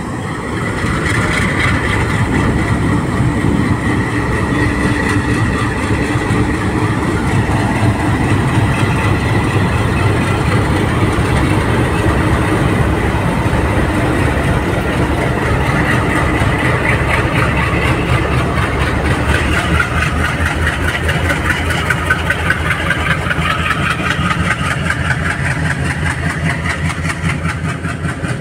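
Indian Railways diesel locomotive engines running loud and steady as the locomotives roll slowly past. From about two-thirds of the way in, a rapid rhythmic clatter grows stronger as the locomotives give way to the passenger coaches.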